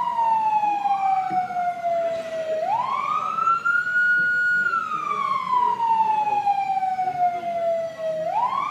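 Emergency vehicle siren on a slow wail: the pitch falls slowly, rises quickly about two and a half seconds in, holds at the top for over a second, falls slowly again, and starts rising once more near the end.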